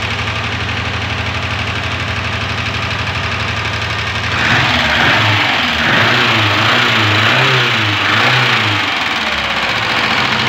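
Renault 19 engine idling, then revved up and down several times from about four seconds in before settling back to idle near the end. The engine has overheated badly and has a noise in it; the mechanic finds broken pistons and ring lands.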